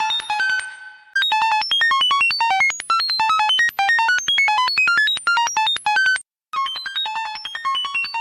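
Electronic beeps in quick strings of short tones that jump between random pitches, about nine a second, like a retro computer processing data. The beeping fades out just after the start, resumes about a second in, cuts off abruptly just after six seconds, and starts again a moment later.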